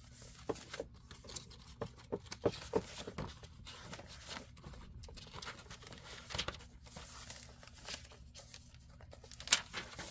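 Paper pages of a handmade junk journal being turned and handled: scattered rustles and light taps, with one sharper snap near the end.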